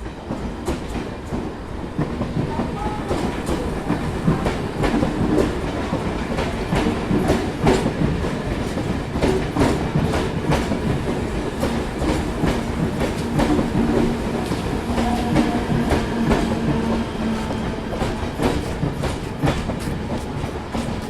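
Mumbai suburban local train running on the track, its wheels clattering over rail joints in many irregular sharp clicks over a steady rumble.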